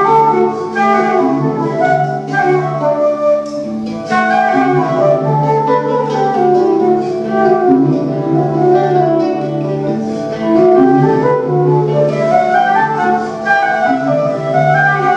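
Folk ensemble playing an instrumental medieval-style tune: a flute carries a rising and falling melody over a steady low drone that swells in an even rhythm.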